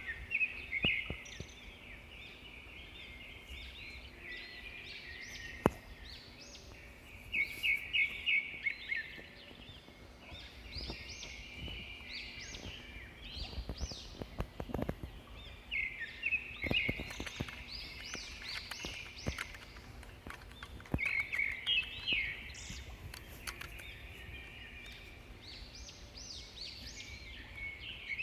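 Small birds chirping outdoors in bouts of quick, high calls that come back every few seconds, over a faint steady background. A few faint clicks are scattered through, and one sharp click about six seconds in is the loudest sound.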